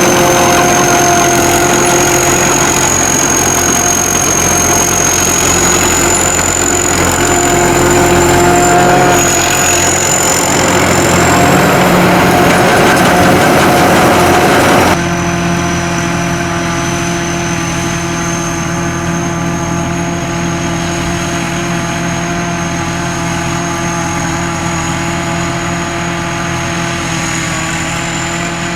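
SAKPATTANA SS-200 mini combine harvester running steadily, its engine and machinery with a constant high whine. The sound drops in level and changes abruptly about halfway through.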